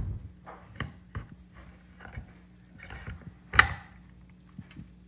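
Hard plastic Safariland ALS retention holster and pistol clicking and rattling as the thumb works the ALS release lever: a few light clicks, then one sharp click about three and a half seconds in.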